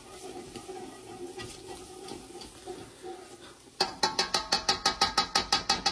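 Wire whisk beating a roux with evaporated milk in a stainless steel pot. It is quiet at first, then about four seconds in the whisk starts clacking rapidly against the metal sides, about eight strokes a second.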